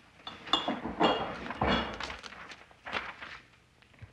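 Small hard objects being handled: a few separate clinks and knocks, with a duller thud about halfway through.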